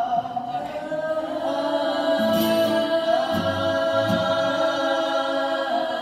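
A group of voices singing together in a choir-like blend, holding long sustained notes with a few slow slides in pitch, and a few soft low thuds under them in the middle.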